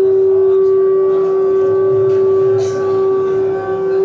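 A wind instrument holding one long, steady note, over faint crowd voices.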